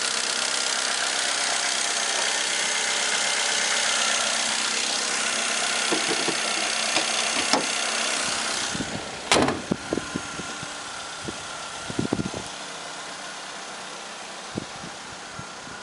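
Chevrolet Aveo 1.2 four-cylinder petrol engine idling steadily, heard close in the open engine bay. A little over halfway through the bonnet slams shut with a sharp bang, and the engine is then quieter and duller, with a few light knocks.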